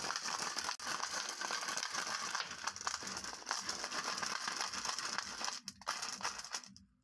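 Glass marbles clattering against one another and the plastic track as a hand shuffles them: a dense, continuous rattle of clicks that briefly thins just before six seconds and stops near the end.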